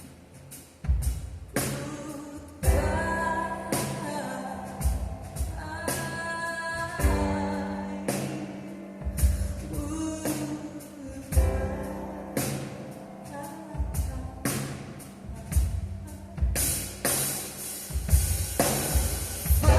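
Slow live band music: a drum kit with a kick drum on a slow beat about every two seconds, with piano and keyboards, and a woman's voice singing that comes in about three seconds in.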